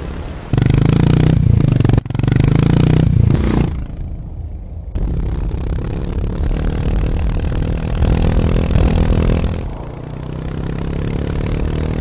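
Harley-Davidson X440's single-cylinder engine and exhaust, revved hard in two loud bursts in the first few seconds. It then runs steadily under way and eases off near the end.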